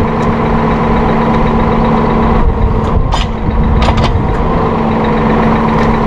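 Massey Ferguson 4610M tractor engine running steadily while the tractor's hydraulics swing open the arms of a three-point bale unroller. A few short clicks come through about midway.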